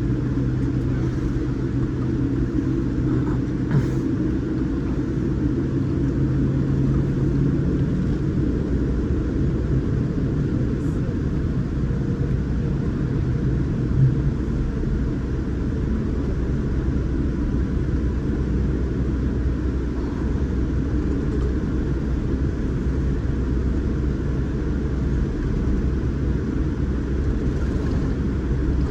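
Boeing 787 Dreamliner cabin noise: a steady low rumble of the engines and airflow heard from inside the passenger cabin, with a low hum that fades about eight seconds in.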